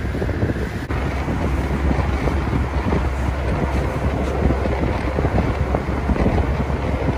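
Steady low rumble of a river ferry's engine heard from its deck, mixed with wind noise on the microphone. About a second in there is a brief break, after which the low rumble is stronger.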